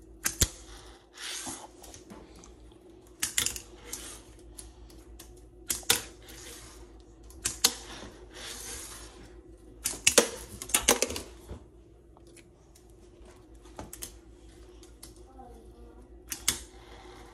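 A small hard object clacking and scraping as a hand taps and slides it across a granite countertop. The clicks and short scrapes come in irregular bursts every couple of seconds, with a louder cluster of clicks about ten seconds in.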